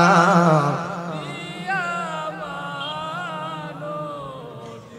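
A man's voice, amplified through a PA, chanting one long drawn-out phrase with a wavering, sliding pitch in the sung, tearful style of a Bangla waz sermon. The phrase sinks in pitch and fades away over about four seconds.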